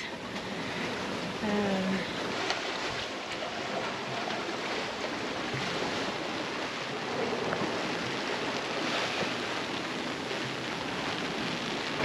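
Steady hiss of heavy rain and wind in a squall, heard from aboard a small sailboat.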